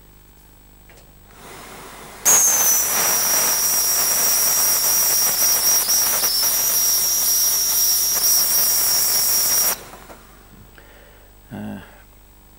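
Steam gun of a dry cleaner's spotting table blowing steam onto a peroxide-treated spot on a garment: a loud hiss with a steady high whistle. It starts about two seconds in and cuts off sharply about seven seconds later.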